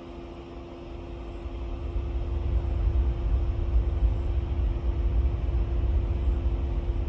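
Distant jet airliner on the runway, its engine rumble building over the first two seconds and then holding loud and steady. A faint, fast regular ticking sounds high above it throughout.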